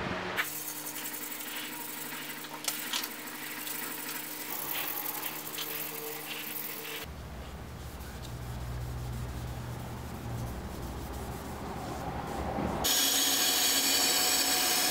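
Shop power tools running in three short takes, the first with a steady motor hum and a few clicks. About two seconds before the end, a louder steady run begins: a spinning buffing wheel with a steel knife blade held against it.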